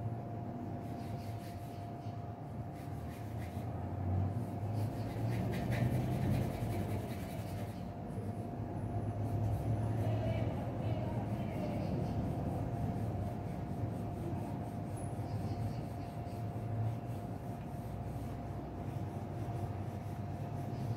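Pencil scratching on drawing paper in short strokes, with scratches bunched together about four to eight seconds in. Under it runs a steady low rumble and a constant thin hum.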